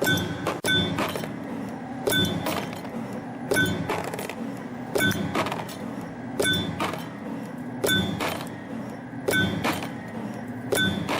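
YHM CF-330 CNC spring-forming machine running, coiling 2.5 mm wire into springs in repeating cycles. About every second and a half comes a burst of sharp metallic clicks with a short ringing tone, over a steady mechanical hum.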